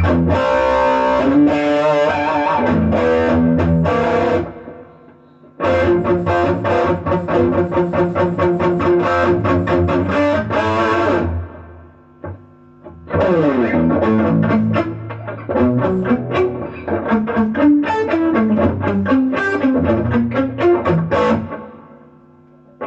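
Electric guitar played through a Bugera V22 Infinium valve combo amp, now working after repair, in three phrases separated by two short pauses. Near the end the playing stops and a faint steady amp hum remains.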